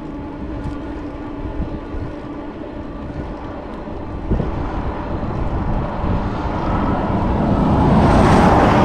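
Highway traffic noise from a motor vehicle approaching and passing close, swelling steadily to its loudest near the end, with wind noise on the microphone.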